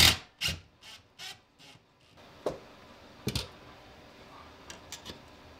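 Hard plastic scraping and clicking as a DeWalt power tool is handled and fitted onto a wall mount. A few soft rubs come first, then sharp knocks, the loudest a double knock in the middle.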